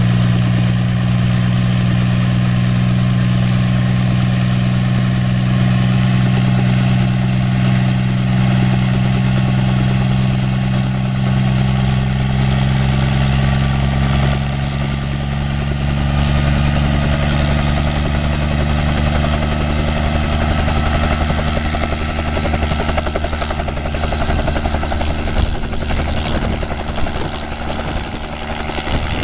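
Bell 47 helicopter's piston engine and main rotor running on the ground with a steady low hum. About halfway through the sound deepens and begins to pulse as power comes up, and near the end the helicopter lifts off into a hover.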